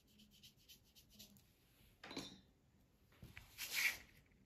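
Faint, quick scratchy strokes of a paintbrush on watercolour paper. About two seconds in there is a knock, and near the end a louder scraping rub as the painting board is turned on the table.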